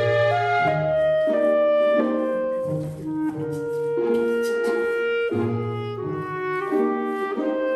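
Background music: a slow melody of held notes over a bass line.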